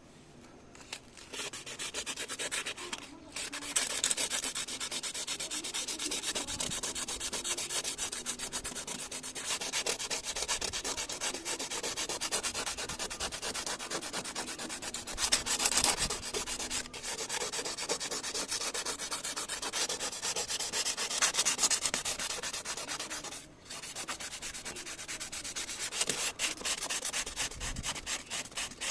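Sanding on a Mercedes-Benz car body panel during a do-it-yourself dent repair: steady, continuous scraping. It breaks off briefly about three seconds in and again about four-fifths of the way through.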